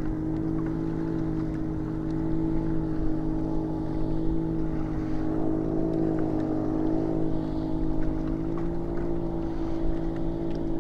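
Boat engine idling steadily, an even low drone that holds the same pitch throughout.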